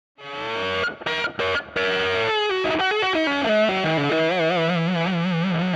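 Intro music: a distorted electric guitar phrase with an effects-unit sound, ending in a warbling held note with vibrato.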